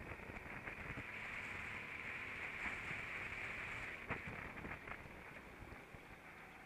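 Go-kart running at speed, heard from the driver's seat: a muffled, steady engine-and-wind noise with a few short knocks, the sharpest about four seconds in.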